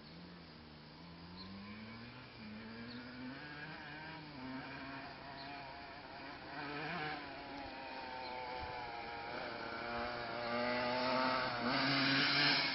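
Honda CR125 two-stroke single-cylinder dirt bike engine revving, its pitch climbing and dropping several times, growing steadily louder.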